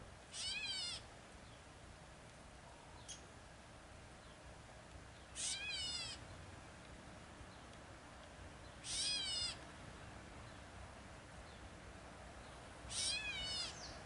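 Gray catbird giving its cat-like mew call four times, a few seconds apart, each a short slurred mew about half a second long.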